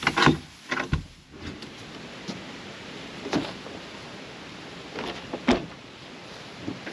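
A handful of knocks and clunks from things being handled and moved around, the loudest about five and a half seconds in.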